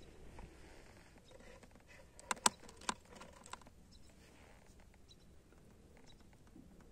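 A few sharp clicks and taps from a small black can being handled, bunched together about two and a half seconds in, with a few fainter ticks afterwards.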